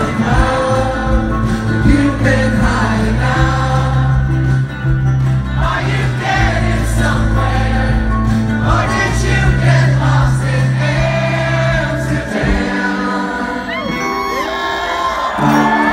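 Live rock band playing with acoustic guitars, bass and male lead vocals, with the audience singing along. About twelve seconds in, the bass and low end drop away, leaving lighter music and whoops from the crowd.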